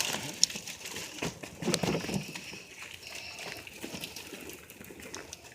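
Rustling and scattered knocks as soil and sweet potato roots are tipped out of a fabric grow bag into a plastic crate. Faint bird calls run underneath.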